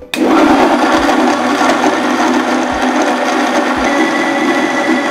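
Electric kitchen mixer's blender jar switched on, its motor starting suddenly and running steadily and loudly as it blends chopped mango, pineapple and ice cubes with water into a smooth juice.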